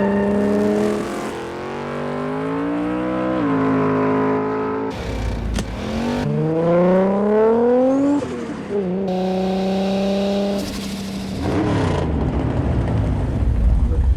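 Car engine accelerating hard, its pitch climbing and then dropping sharply at gear changes, twice, with rushes of noise in between as cars pass.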